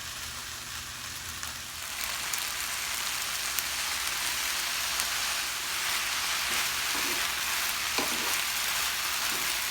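Cold rice with chicken and vegetables sizzling in olive oil in a very hot skillet. The sizzle grows louder about two seconds in as more soy sauce goes into the pan, and a few light knocks come near the end.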